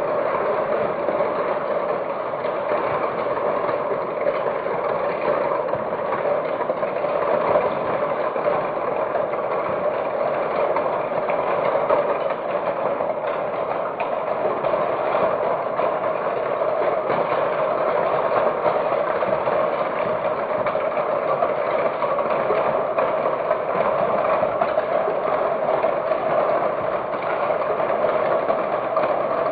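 Balls rolling and clattering along a marble run track: a continuous dense rattle of many small clicks and knocks, steady throughout.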